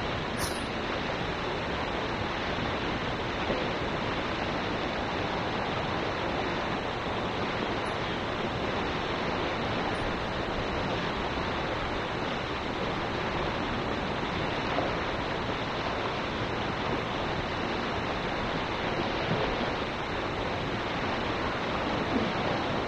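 Steady rush of water tumbling over a weir into the pool below.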